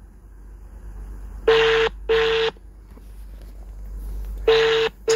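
Telephone ringback tone of an outgoing call, played through a phone's loudspeaker: a double ring of two short identical tones about 1.5 s in, and the next double ring starting near the end, about three seconds later.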